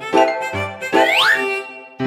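Bouncy children's cartoon background music, with notes struck on a steady beat of about two a second. About a second in, two quick rising whistle-like glides sound over it as a cartoon sound effect.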